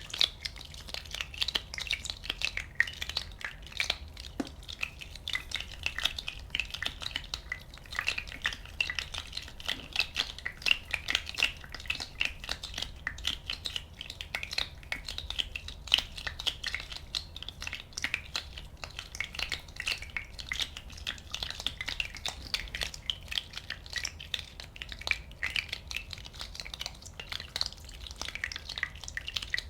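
Many small bubbles popping in a dense, irregular crackle of tiny pops and ticks.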